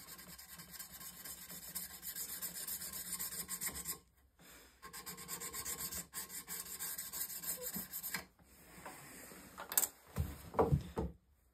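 A diamond honing paddle rubbed back and forth along the steel bevel of a TwoCherries drawknife in quick, scratchy strokes, honing the edge to raise a burr during its first sharpening. The strokes stop briefly about four seconds in, start again and die away near eight seconds, followed by a few dull thumps near the end.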